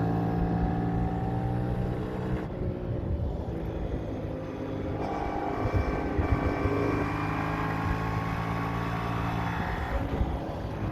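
Yamaha MT-07's parallel-twin engine running at fairly steady revs on the move. Its note drops back about two and a half seconds in, as on closing the throttle, and picks up again around five seconds in.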